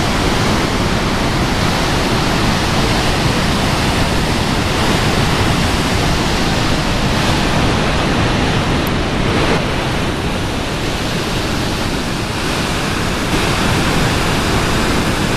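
Niagara Falls: a steady, loud rush of falling water.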